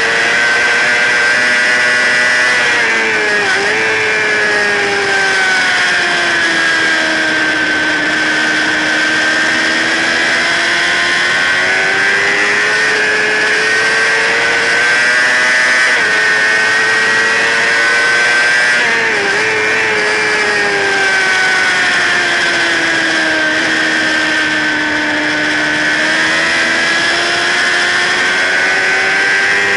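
Sport bike engine heard from an onboard camera at racing speed, running at high revs with its pitch sagging slowly and climbing back twice, each time after a quick dip, as the rider works through corners. Strong wind rush over the camera runs under the engine.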